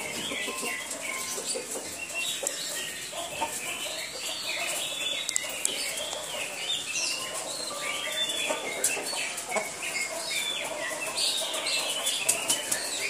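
Many small birds chirping steadily, with a rooster flapping its wings as it moves about.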